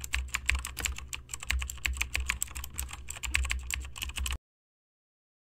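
Typing sound effect: a quick run of computer keyboard key clicks, cut off abruptly about four seconds in.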